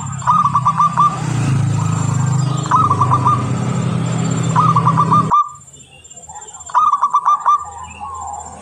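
Zebra dove (perkutut) cooing: four phrases of several quick, rippling coo notes, spaced about two seconds apart. A low steady hum sits underneath and cuts off suddenly about five seconds in.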